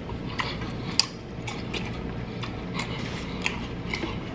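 Scattered light clicks and taps of someone eating at a plate of deep-fried candy bars, the loudest about a second in, over a low steady hum.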